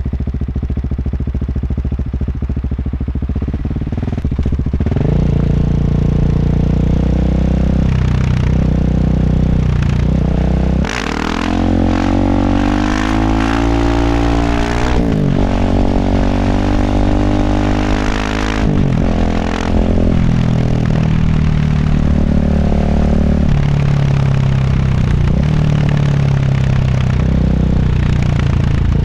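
KTM 690 SMC R single-cylinder engine running through a Tekmo titanium exhaust with an Arrow muffler, its revs rising and falling. A short drop about eleven seconds in is followed by several climbs in pitch that break off one after another, like shifts up through the gears.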